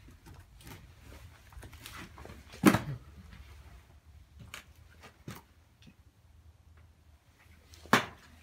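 Footsteps and small knocks on a hard, debris-strewn floor, irregular and sparse, with two louder sharp thumps: one just under three seconds in and one near the end.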